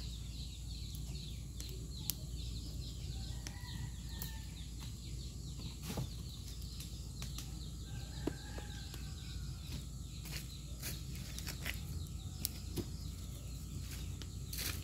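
Leaves and branches burning in a cinder-block rocket stove, crackling with sharp pops every second or two over a steady low rush. Faint bird calls come and go in the background.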